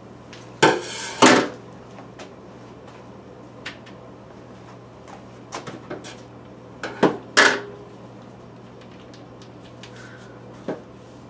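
Kitchenware clattering in a stainless steel sink: two loud knocks about a second in, a second pair of knocks around two-thirds of the way through, and scattered lighter clicks between.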